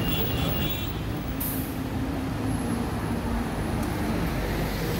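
Double-decker bus running at a stop amid steady street traffic noise, with a short hiss about a second and a half in.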